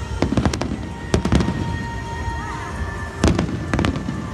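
Fireworks display: shells bursting in quick clusters of sharp bangs, a few near the start, a group about a second in and more after three seconds.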